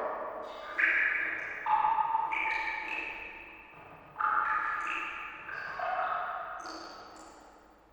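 Water drops plinking one after another at irregular intervals, each a clear pitched note at a different pitch that rings and fades over a second or two, the notes overlapping.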